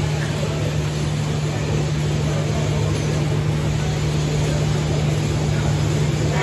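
Steady machinery hum: a constant low drone with an even hiss over it, unchanging throughout.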